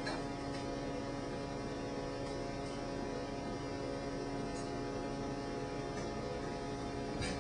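Steady electrical mains hum over a hiss of background noise, with a few faint, soft ticks scattered through.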